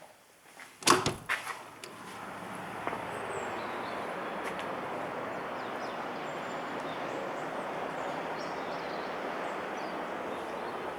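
A few sharp knocks and clicks about a second in, like a door being opened, then a steady, even noise of outdoor ambience that holds on.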